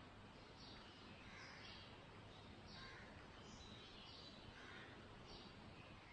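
Near silence: faint room hiss with small, high bird-like chirps in the background, roughly one a second.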